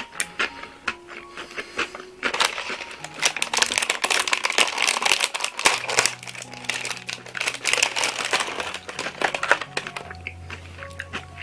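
A foil snack pack of seasoned laver (gim) being handled and opened, giving a dense crinkling and crackling from about two seconds in until near the end. A few sharp clicks come just before it.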